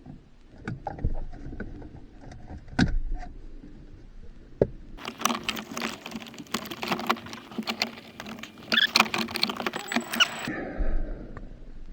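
Hand work on a truck's dashboard: scattered clicks and knocks of tools and plastic trim being handled, then about five seconds of dense rattling and clattering that stops suddenly near the end.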